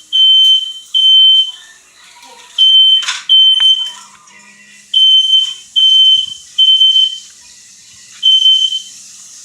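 Smoke alarm sounding: loud, high-pitched single-tone beeps, each about half a second long, repeating in groups of two or three with short pauses between the groups. A brief burst of noise comes about three seconds in.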